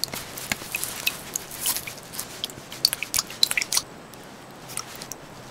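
A knife blade chipping and stabbing at lake ice, cutting a hole through it, with quick crunches and clinks of breaking ice chips. The crunching stops about four seconds in.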